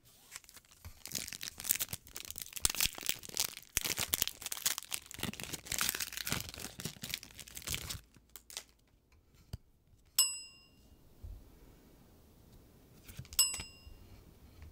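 Foil wrapper of a trading-card booster pack being torn open and crinkled by hand for about eight seconds. After it, two short bell-like dings about three seconds apart, an edited-in chime that marks each card's value being added up.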